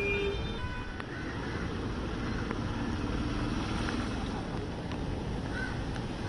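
Street traffic noise on a flooded road, a steady rumble, with a vehicle horn sounding briefly at the start before it cuts off.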